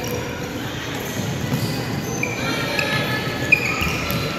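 Sneakers squeaking in short high chirps on a wooden gym floor during an indoor soccer game. A single sharp ball kick lands about three and a half seconds in. Spectators chatter in the background.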